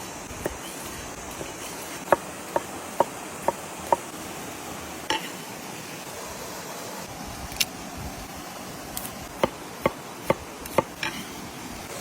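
Knife chopping on a cutting board: sharp knocks in two runs of four or five, about two a second, with a few single knocks between.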